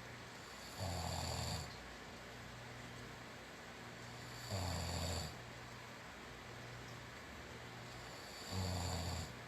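A sleeping person snoring: three loud, low snores about four seconds apart, each lasting under a second.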